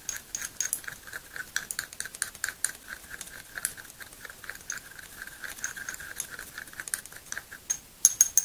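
Thin metal tool stirring acrylic nail powder and glitter in a small glass jar: rapid clinking and scraping against the glass, with a faint ringing note. A few sharper taps come near the end.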